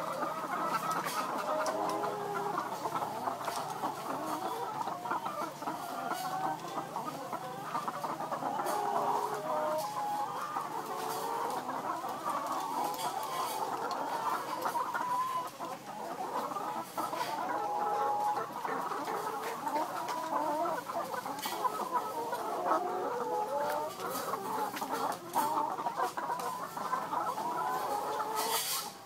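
A flock of chickens clucking, many birds calling over one another without a break, with scattered short clicks.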